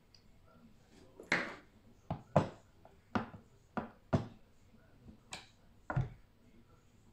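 Red-handled long-nose pliers handled at a cable end and laid on a tabletop: a series of about eight sharp, irregularly spaced knocks and clacks.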